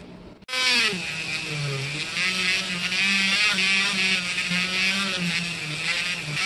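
Handheld rotary tool running at high speed with a small bit grinding against an old steel putty knife. It starts suddenly about half a second in, and its whine dips and wavers in pitch as the bit bears on the metal, over a gritty hiss.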